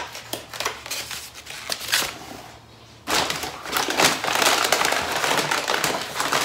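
Takeaway food containers and their plastic packaging being handled and opened: scattered clicks and crinkles, then from about three seconds in a dense, continuous crackling of plastic.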